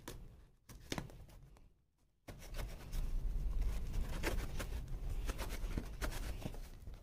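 A knife blade scraping and cutting at packing tape on a cardboard parcel, with the tape and cardboard rustling under the hands. It is mostly quiet with one click in the first two seconds, then steady scraping and rustling with small clicks.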